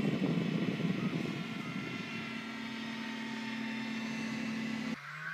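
Raven ultralight aircraft's engine droning steadily overhead in flight, with a steady hum joining about two seconds in. The sound cuts abruptly near the end to an engine rising in pitch.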